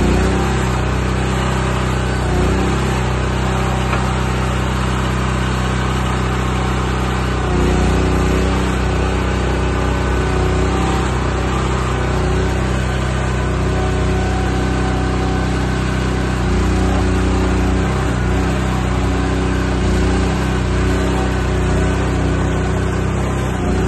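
Kato 107 HT tracked carrier's engine running steadily. Its note shifts several times while the high-tip skip is lowered and the machine starts to move.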